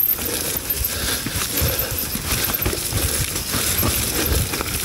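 Mountain bike descending a wet, muddy trail: irregular knocks and clattering from the bike over the rough ground, over a steady hiss of tyre and wind noise.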